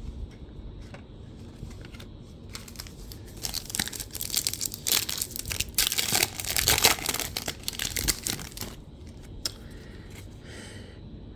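Wrapper of a Bowman Chrome U basketball card pack being torn open and crinkled: a run of rustling and tearing for several seconds in the middle, loudest a little past halfway.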